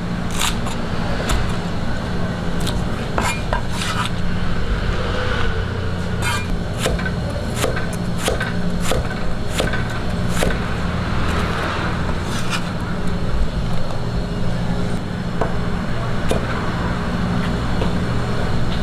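Chinese cleaver slicing green onion and then onion, each stroke a sharp knock on the cutting board at an irregular pace, over a steady low hum.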